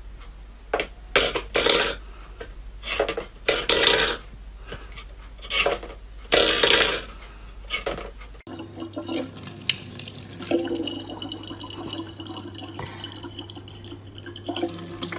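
A metal bowl scraping and clattering on a wooden floor in irregular bursts as a cat paws at it. About halfway through, this gives way to the steady trickle of a thin stream of water from a dispenser tap falling into a plastic water bottle.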